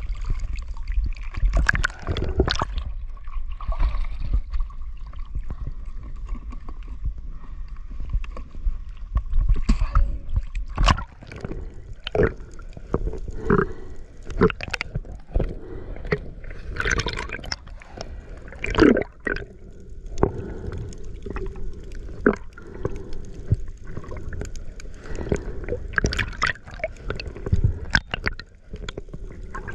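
Water gurgling and sloshing around a camera moving underwater, with irregular knocks and clicks scattered throughout.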